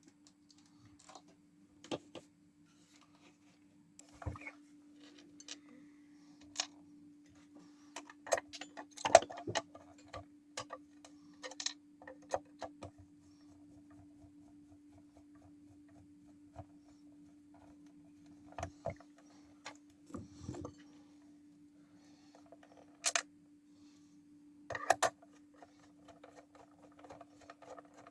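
Scattered clicks and knocks of a kitchen mixer's parts being handled and fitted back together, over a steady faint hum.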